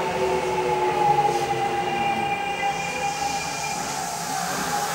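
Tokyo Metro 6000 series train with Mitsubishi IGBT-VVVF traction control, heard from inside the car as it slows into a station. The inverter whine sinks slowly in pitch over the steady wheel and running noise, and higher whining tones come in briefly midway.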